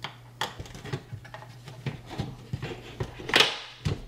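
An in-wall speaker being pushed by hand into a drywall cutout so its spring-loaded dog legs snap in: scattered clicks and rubs, with a louder scrape about three and a half seconds in and a knock just after.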